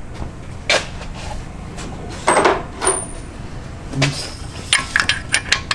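Metal hand tools clinking and knocking: a few separate knocks, then a quick run of light clicks near the end.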